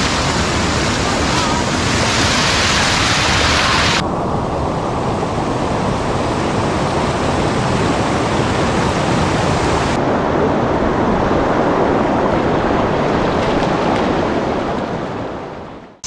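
Mountain stream rushing over rocks and a low concrete weir: a loud, steady rush of water that fades out near the end.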